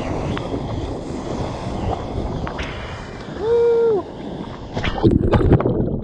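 Whitewater and wind rushing over a GoPro held close to a surfer riding a wave, with a short pitched vocal hoot about three and a half seconds in. Near the end the camera plunges underwater in a loud churn of splashing and the sound goes muffled.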